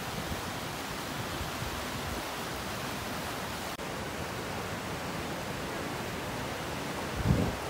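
Small creek rushing and splashing over rocks, a steady hiss of running water. A brief low rumble comes near the end.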